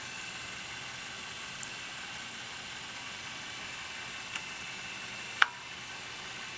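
DeJur 750 film projector's motor and mechanism running at its slowest speed: a steady whir with a few steady high tones. A sharp click sounds about five and a half seconds in, with fainter ticks before it.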